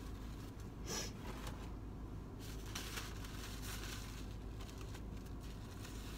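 Brown paper bag crinkling faintly as it is handled, a few light rustles over a low steady hum.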